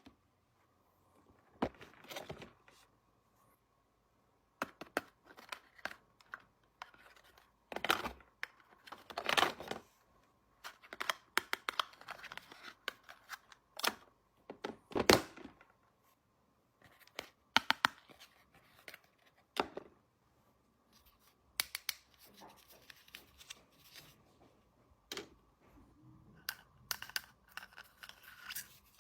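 Packaging of a miniature toy kitchen set being torn and crinkled open by hand, in irregular bursts broken by short pauses, with sharp little clicks and taps among them.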